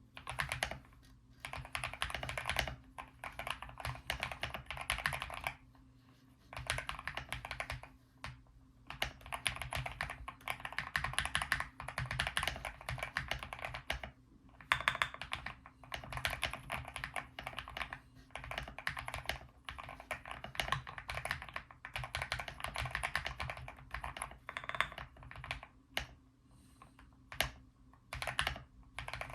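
Typing on an Akko 5075B Plus mechanical keyboard with lubed linear wine red switches, lubed stock stabilizers and a four-layer tape mod: fast runs of poppy keystrokes in bursts of a few seconds, with short pauses between them.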